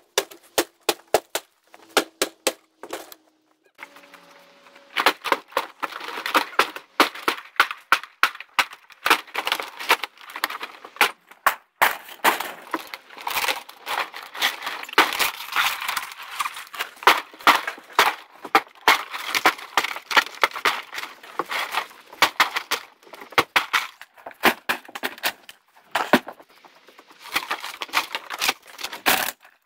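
Demolition of a mobile-home add-on room, sped up in a time-lapse: a rapid, dense clatter of knocks, cracks and rattles as vinyl siding, wall panels and framing are pried and broken off.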